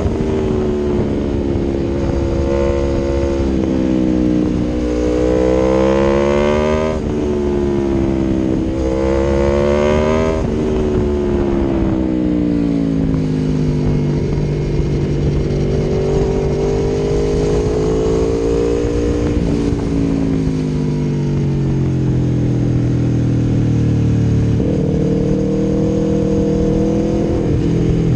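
Aprilia Tuono V4 1100's V4 engine through an Akrapovic exhaust, heard from the moving bike: the revs climb and drop back three times as it accelerates up through the gears. The revs then fall slowly as the bike slows on the engine, and a downshift near the end lifts them again.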